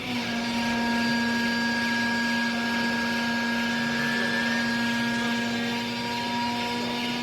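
Hydraulic baling press's electric motor and hydraulic pump running with a steady hum and a higher whine, cutting in abruptly at the start.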